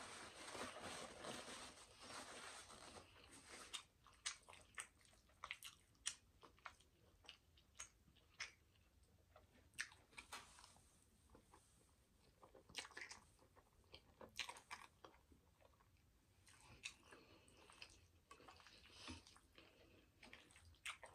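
Close-miked mouth sounds of someone eating soft fettuccine Alfredo: quiet chewing with wet smacks and clicks at an irregular pace. A soft paper-napkin rustle comes in the first few seconds as hands are wiped.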